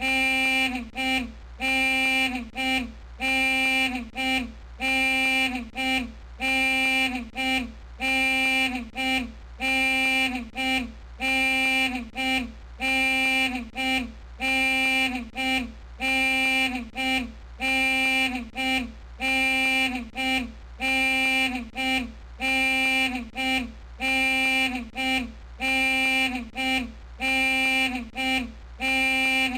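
Jeep horn or alarm sounding over and over in a fixed pattern, a short note then a longer one, about once a second, each ending with a slight drop in pitch.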